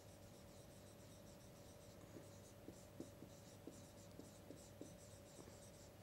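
Faint scratching and light ticks of a stylus writing on a pen tablet, over a faint steady hum.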